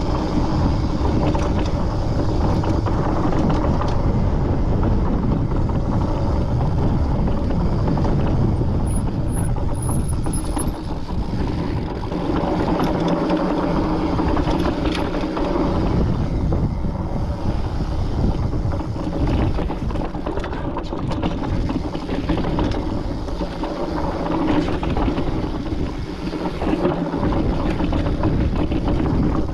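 Mountain bike riding over sandstone slickrock: steady wind noise on the camera microphone over low tyre rumble and bike rattle.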